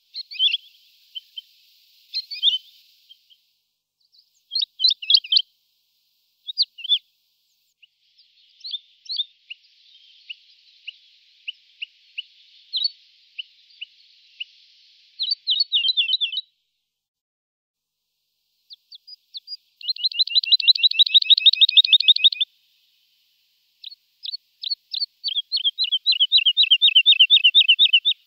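Woodlark singing: short phrases of clear, liquid whistled notes separated by pauses, then two longer phrases of fast repeated notes, about ten a second, one after about twenty seconds and another running into the end.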